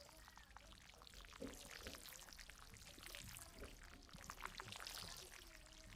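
Faint rain sound: a light, crackling patter of many small drops, with a few faint short low murmurs beneath it.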